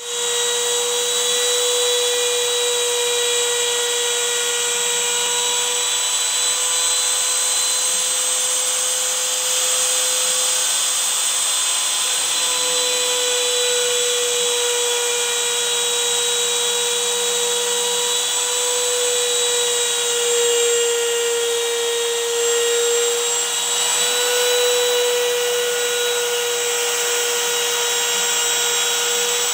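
Router spindle on a homemade wooden CNC machine running at speed while its bit cuts a groove into a laminated drawer panel: a steady high whine over cutting noise. The pitch dips slightly for a couple of seconds past the middle.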